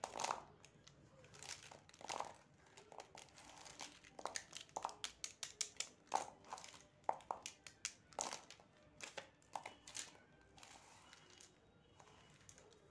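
Plastic felt-tip marker pens clicking and clattering against each other as they are handled in a bunch, then laid down on paper; a quick run of sharp clicks that dies away about ten seconds in.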